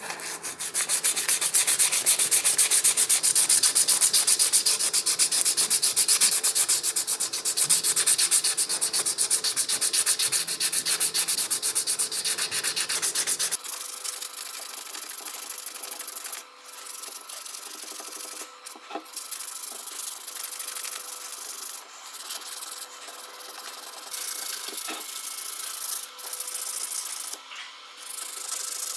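Abrasive rubbing, like sanding, on a metal part of the alternator being cleaned up for restoration: a loud, steady scratchy hiss that changes about halfway through to quieter, stop-start strokes with short pauses.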